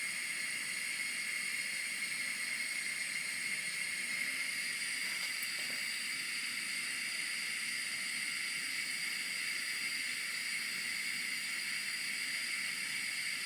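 Steady hiss of a small Bialetti stovetop espresso pot heating on a gas ring at full flame, as the water nears the boil and the pot starts to make noise.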